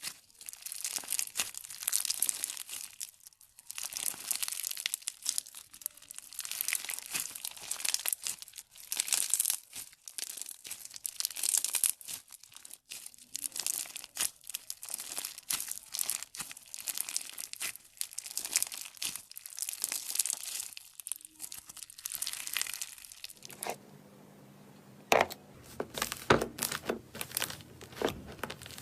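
Crunchy slime being squeezed and pressed by hand, giving a dense run of crackling and crinkling pops. A little over 23 seconds in the sound cuts to a quieter stretch with a faint low hum and a few separate sharp snaps.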